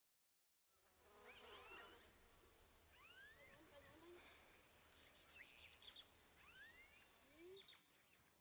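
Faint ambience of insects, a steady high-pitched drone, with scattered short rising bird chirps. It fades in just under a second in.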